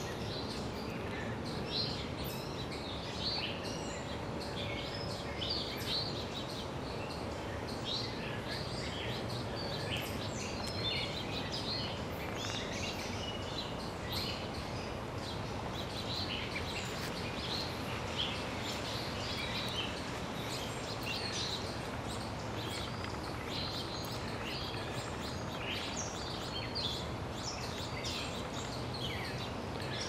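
Songbirds chirping and singing in many short, overlapping calls throughout, over a steady background hiss of outdoor noise.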